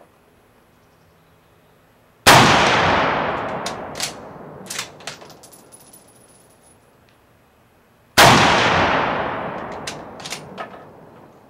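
Two rifle shots from a Mosin-Nagant bolt-action carbine in 7.62×54R, about six seconds apart, each with a long echo rolling away over several seconds and a few sharp clacks after it.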